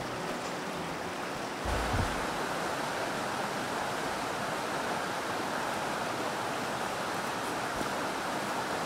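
Steady rush of a rocky mountain trout stream running over a riffle, a little louder from just under two seconds in, where a soft low thump is heard.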